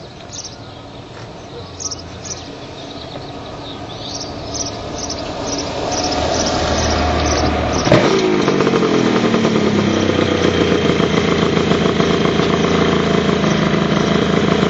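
Kawasaki 500 (H1) two-stroke triple with WTF expansion chambers approaching and growing louder, passing close at about eight seconds with a sharp drop in pitch. It then runs loud and steady close by, jetted a little rich.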